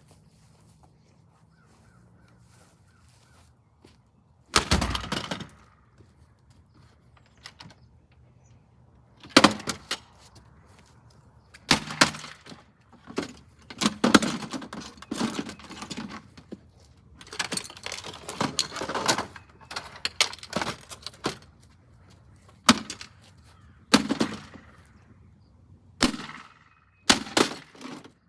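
A Nostalgia mini fridge being smashed: irregular loud blows and cracking, a single hit about four and a half seconds in, then clusters of rapid strikes with short pauses between.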